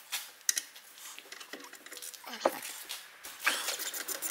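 Quarter-inch flexi-head ratchet clicking as it undoes a brake caliper bolt, with scattered clicks and then a quick run of clicks near the end.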